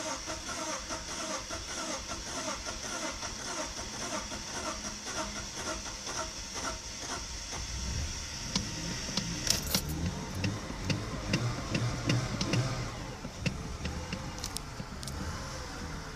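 BMW E46 320i straight-six cranking on the starter for about eight seconds, then catching and running unevenly with sharp clicks before steadying near the end: a hard cold start after its wet spark plugs were dried.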